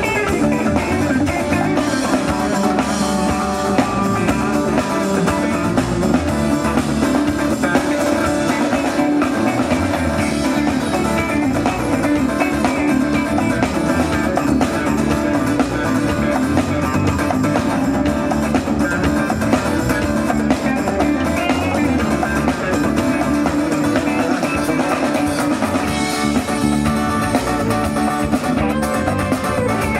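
Folk band playing live, with guitar and drum kit.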